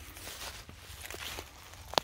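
Footsteps crunching and rustling through dry fallen leaves, with a sharp click or snap just before the end.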